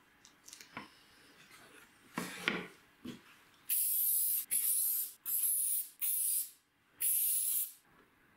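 Aerosol spray can sprayed in five short hissing bursts, each well under a second long, starting a little before halfway through. Before that, light rustling and a few small knocks of the taped plywood template being handled on wood.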